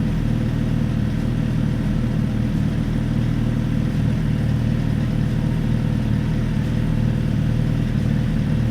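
Suzuki GSX-R1000's inline-four engine idling steadily, holding an even pitch with no revving.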